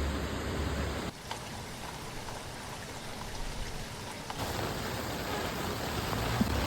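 Rain falling steadily as an even hiss of drops. The sound drops and thins abruptly about a second in, then grows fuller again about four seconds in.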